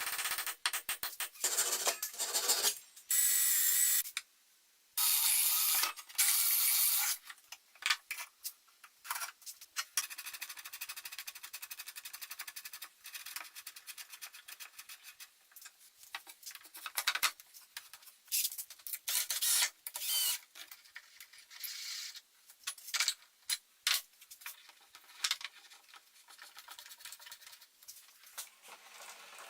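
Workshop tool noise: irregular bursts of scraping and rubbing, several longer loud bursts in the first few seconds, then shorter scattered strokes.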